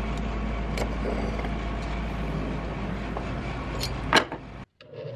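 Steady low hum and rushing noise, with a few light clicks and one sharp knock about four seconds in. The sound then cuts off abruptly.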